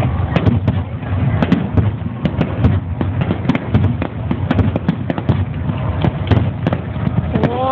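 Fireworks display: a dense, irregular run of bangs and crackles, several a second, from many shells bursting close together over a constant low rumble.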